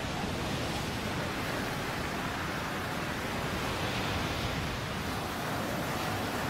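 Surf breaking and washing over the shore: a steady rush of churning seawater.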